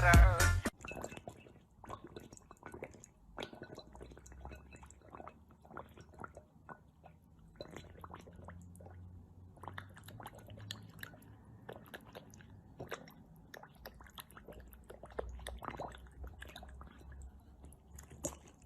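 Chewing: many irregular small crunches and clicks, with music cutting off in the first second.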